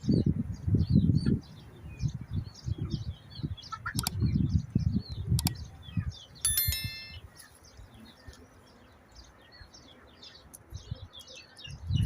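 Small birds chirping continuously. Over them come low thuds in the first second and a half and again around four seconds in, two sharp clicks, and a brief ringing metallic clink about six and a half seconds in.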